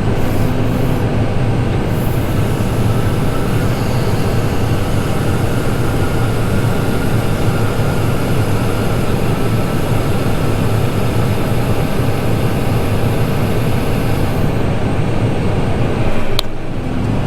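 Tractor engine running steadily under PTO load while the grain cart's unloading auger runs, corn pouring out of the spout. A steady hiss over the engine hum drops away shortly before a single sharp click near the end.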